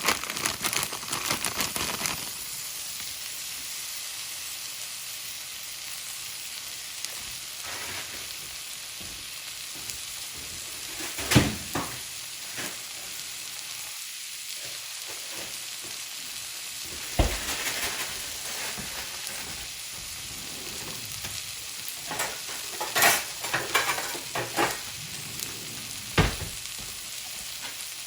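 Fried rice sizzling steadily in a cast iron pan while it is stirred, with a cluster of clattering strokes at the start and a few sharp scrapes or knocks of a utensil against the pan later on.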